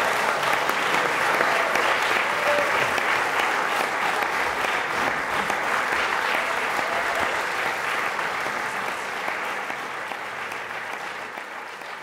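Audience applauding, a dense even clatter of many hands clapping that gradually fades away over the second half.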